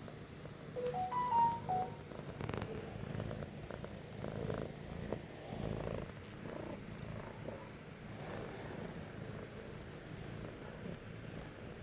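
Domestic cat purring steadily, a low pulsing rumble. About a second in there is a brief run of short tones that step up in pitch and back down.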